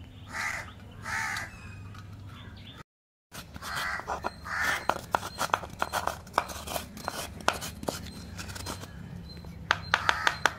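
Crows cawing over and over, then a quick run of sharp scraping clicks as fresh coconut meat is scraped out of the half shell with a spoon. The sound cuts out for a moment about three seconds in.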